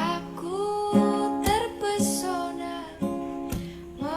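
Acoustic guitar strummed under a voice singing a slow Indonesian song.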